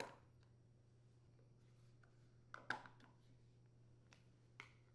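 A few short, sharp plastic clicks from a lawn mower's front-wheel hub covers being pried off with a flat-head screwdriver and handled. There is one click at the start, a louder double click about two and a half seconds in, and a faint click near the end, with near silence between.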